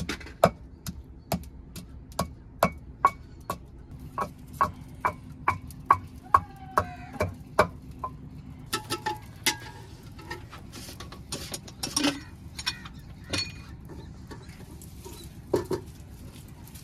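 Regular chopping strokes on a cutting board, about two a second for the first eight seconds, then scattered clinks and knocks of kitchen utensils.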